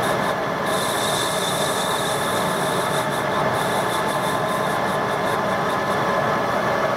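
Metal lathe running under power while a cutting tool turns a shoulder on a spinning brass part: a steady mechanical running sound with a high whine.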